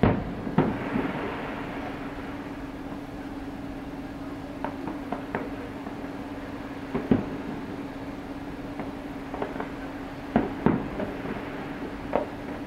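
Fireworks shells bursting at a distance: a series of sharp bangs, the loudest at the start, about seven seconds in, twice close together past ten seconds and near the end, with smaller pops between. A steady low hum runs underneath.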